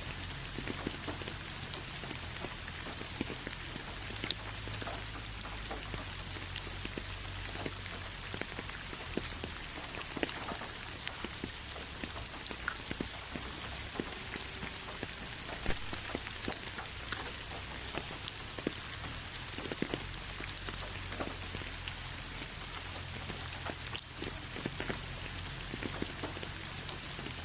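Steady rain: a constant hiss with many scattered single drops ticking sharply on a surface.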